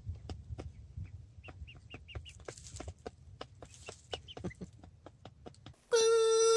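Buff Brahma chickens clucking and chirping softly, with many short clicks among the calls. Near the end a loud steady tone cuts in, much louder than the birds, and stops abruptly.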